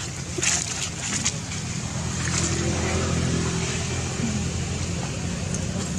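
A steady low engine hum, with a few faint clicks in the first second or so.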